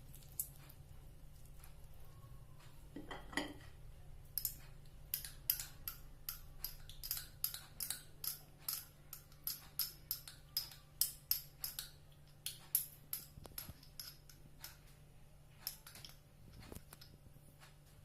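Ingredients being cut in a quick run of crisp snips, about two a second, that start about four seconds in and thin out after about thirteen seconds.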